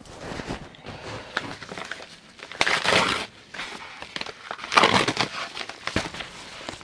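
Padded paper mailers being handled and opened, crinkling and rustling in uneven bursts with small clicks, loudest about three seconds in and again about five seconds in.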